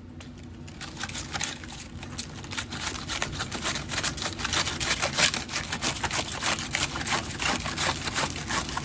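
Knife shredding white cabbage on a cutting board: rapid, evenly repeated chopping strokes that grow louder after the first second.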